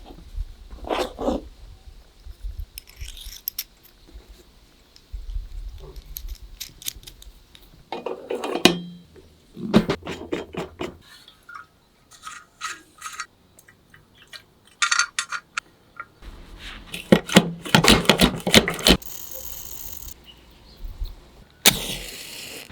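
Metal parts of an antique brass blowtorch being handled: irregular clinks, taps and scrapes of brass on metal, in clusters.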